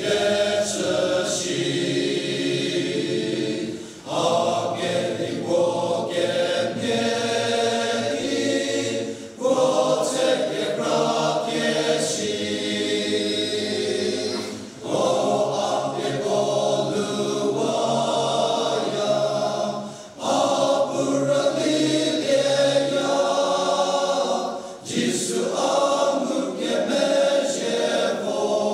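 Men's choir singing together, in phrases of about five seconds with a brief breath between them.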